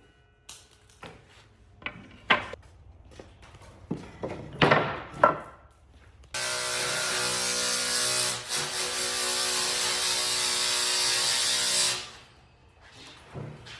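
Wood being handled with scattered knocks and clicks. About six seconds in, a power tool runs steadily for about six seconds on the wood, then stops, and the knocking resumes.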